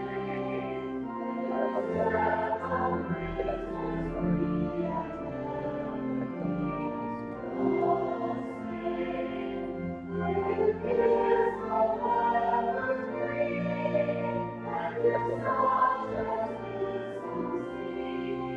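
Choir singing with instrumental accompaniment: sustained chords over held low bass notes.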